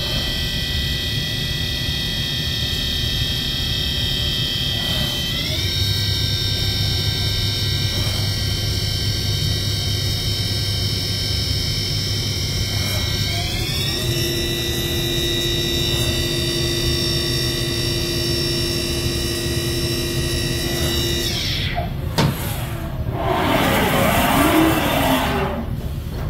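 Haas VF-6 vertical machining center's spindle drive running with a high whine made of several tones, which steps up in pitch twice and then winds down. A click follows, then a few seconds of mechanical rushing noise as the table traverses along its axis.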